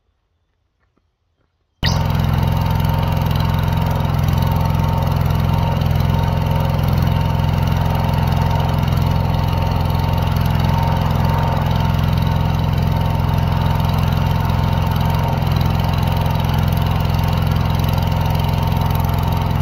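Near silence, then about two seconds in a truck-mounted engine-driven welder running steadily at constant speed cuts in suddenly and holds unchanged.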